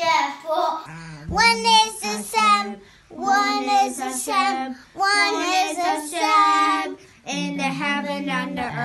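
A young child singing alone, in several short phrases with brief breaths between them.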